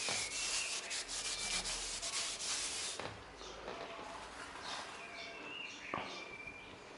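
Rubbing strokes as the shutter winch parts are scrubbed clean, dense and quick for about three seconds, then stopping. After that come faint high chirps and a single sharp click near the end.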